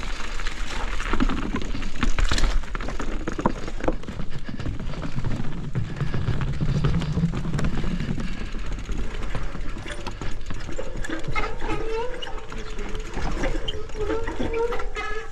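Mountain bike riding down a dirt trail: steady tyre and wind noise with rattling clicks and knocks from the bike over roots and wood. For the last few seconds a wavering squeal joins it.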